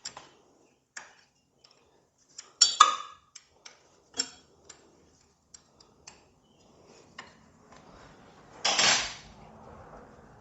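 Metal hand tools and parts clinking and clicking irregularly as a motorcycle is taken apart, with a louder clatter about two and a half seconds in and a short, loud scraping rattle near the end.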